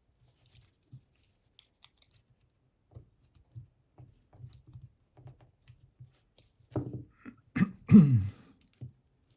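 Small metal clicks and scrapes of hand tools working a side plate loose on a brass pump lock. They come sparse and faint at first, then denser and louder near the end, with the loudest clatter about eight seconds in.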